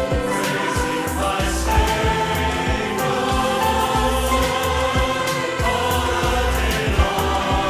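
Christian worship music: a choir singing held notes over a band with bass and a steady drum beat.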